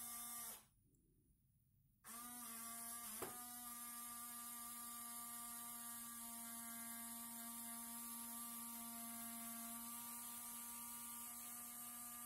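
Small electric motor of a scale landing-gear retract unit running with a steady hum as it slowly swings the gear leg and wheel down. It cuts out about half a second in and restarts after a second and a half, rising in pitch as it spins up. There is a click at about three seconds, then it runs on evenly.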